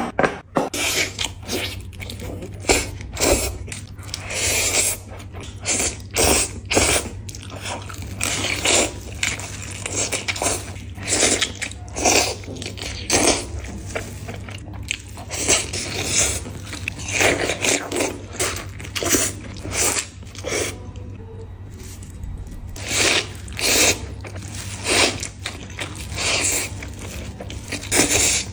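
Close-miked eating sounds: a person repeatedly biting into crunchy food and chewing it, with a short pause about three-quarters of the way through.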